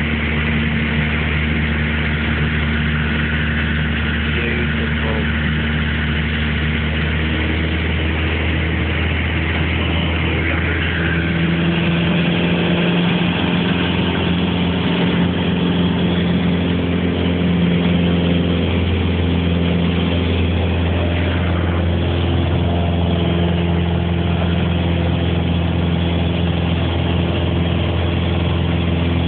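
Light aircraft engine droning steadily in flight; about eleven seconds in the pitch rises slightly and it grows a little louder.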